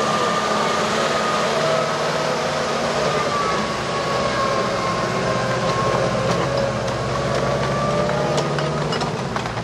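1940 Ford truck's flathead V8 engine running at low speed as the truck passes slowly, towing a wooden-wheeled field howitzer, with a steady high whine over the engine that wavers slightly in pitch.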